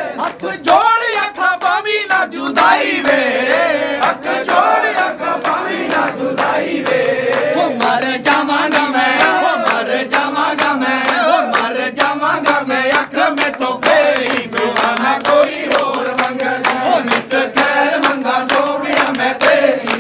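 A group of devotees singing a Hindi-Punjabi devotional bhajan in unison, with steady rhythmic hand-clapping in time with the song.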